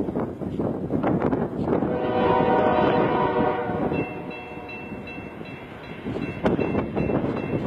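Approaching train's locomotive air horn sounding one steady chord about two seconds long, starting about two seconds in, over a rough rushing noise.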